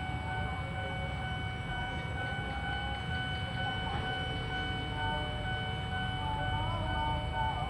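Train passing: a steady low rumble of rolling wheels, with steady high-pitched tones ringing over it.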